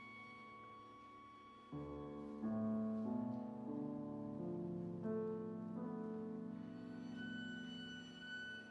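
Chamber ensemble of piano, winds, horn and strings playing an instrumental passage of held chords. It starts soft, swells noticeably about two seconds in, and the chords change every second or so.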